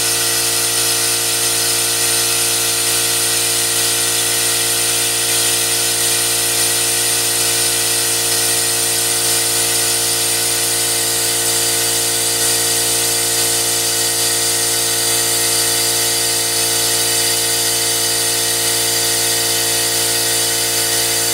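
Venturi coolant evacuation tool running on compressed air: a steady rush of air with a constant hum as it pulls the cooling system down to vacuum.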